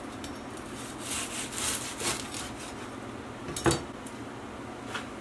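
Chef's knife sawing through the crisp crust of a deep-fried pork egg roll on a plastic cutting board: a few crunchy rasping strokes, then a sharp knock as the knife is set down on the board.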